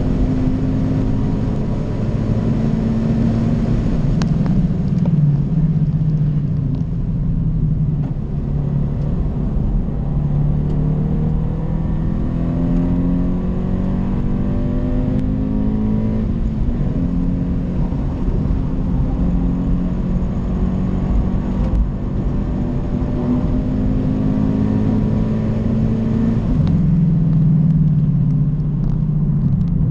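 Car engine heard from inside the cabin at speed on a race track. Its note climbs and drops back again and again as it pulls through the gears, over steady tyre and road rumble, and it is loudest near the end.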